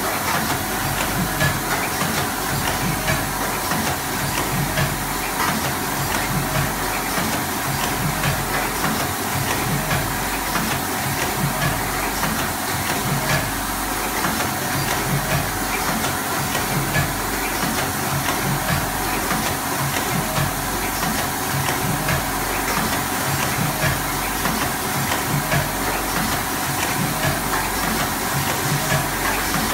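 C21DX ultrasonic pyramid tea bag packing machine and neighbouring packing machines running together: a steady mechanical clatter of fast repeated clicks over a constant hiss.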